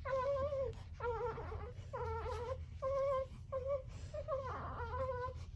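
Newborn baby crying in a string of about eight short, fussy cries, each under a second, with brief gaps between them.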